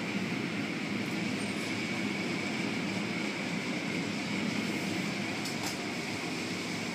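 Automatic car wash running, heard from inside a car: a steady rush of water spray and spinning cloth brushes over a constant machine hum, with a thin steady high whine.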